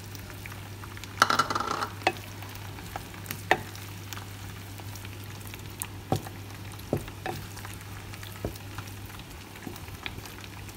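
Fried eggs tipped from a bowl into sambal paste frying in a nonstick pan: a loud burst of sizzling and clatter about a second in, then a wooden spatula stirring and scraping through the sizzling paste with scattered knocks against the pan.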